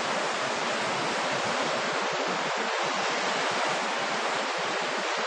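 Steady rush of choppy sea surf breaking along the shore, an even hiss with no single wave standing out.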